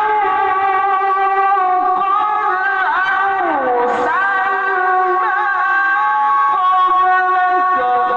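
Music with a singing voice holding long notes, with a slide down in pitch about three and a half seconds in.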